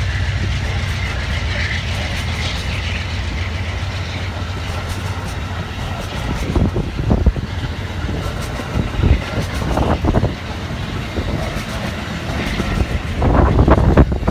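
Amtrak Amfleet passenger coaches rolling past at track speed: a steady low rumble, with wheels clacking irregularly over rail joints, the loudest clacks near the end.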